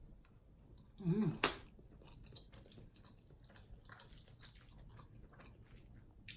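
Close-miked chewing and wet mouth sounds of someone eating jambalaya pasta. A short hummed murmur about a second in is followed by a sharp click, and faint small clicks of chewing run through the rest.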